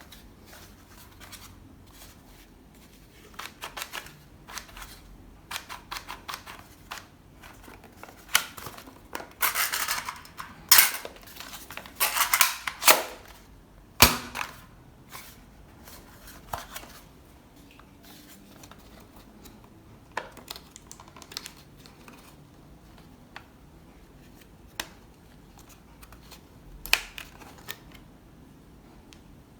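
Plastic toy parts and packaging being handled: irregular sharp clicks and short rustles, busiest around the middle, with one sharp click just after.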